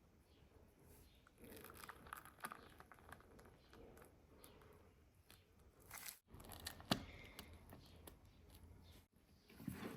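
Faint crinkling and tearing of hands working with food and its wrapping during filling preparation, with scattered small clicks and one sharper tick about seven seconds in.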